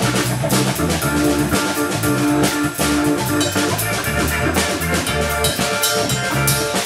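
Live instrumental trio playing: a drum kit with steady cymbal and drum strokes, an electric bass, and held chords from a keyboard.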